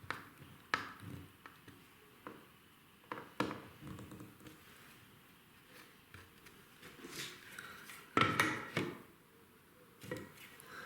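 Scattered small clicks and taps of hand tools and a plastic socket faceplate as a double USB socket is levelled and screwed to its wall back box, with a louder scraping rasp about eight seconds in.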